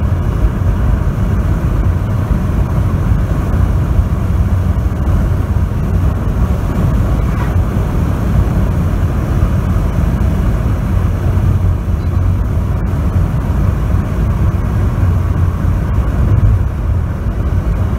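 Car driving along a highway, heard from inside the cabin: steady, low road and engine noise.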